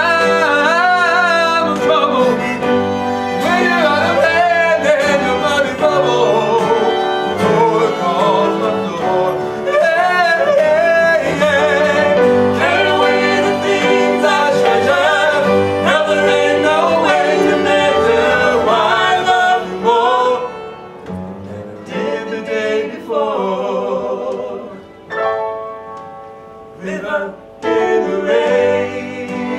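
Two male voices singing a slow ballad duet with instrumental accompaniment. About twenty seconds in, the music drops to a softer, quieter passage.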